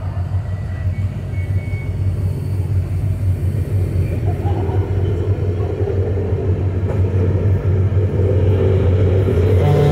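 Streamlined passenger cars of a train rolling past: a steady rumble of wheels on rail over a low drone, growing slowly louder toward the end. Just before the end, a steady pitched tone starts.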